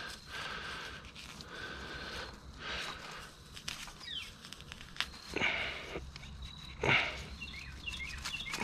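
A bare hand scraping and digging in loose soil and brushing through leafy weeds, in a run of rustling scrapes with louder ones about five and seven seconds in.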